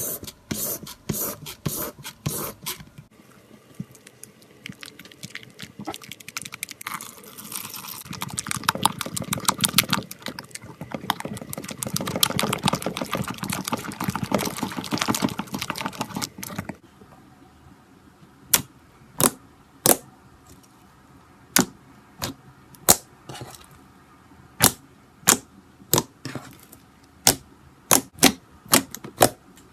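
Slime being handled: a few sharp clicks, then a long stretch of dense crackling squishing in the middle, then a run of separate sharp pops over the last third.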